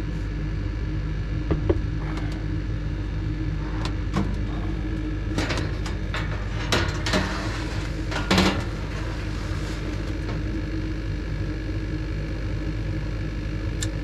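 Gas furnace's draft inducer motor running with a steady hum, while the sheet-metal front door panel is handled and lifted off, knocking and rattling several times, loudest about eight seconds in.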